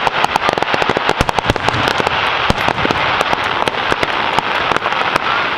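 Aerial fireworks going off in a dense, rapid run of crackling pops and cracks, many a second, over a steady hiss.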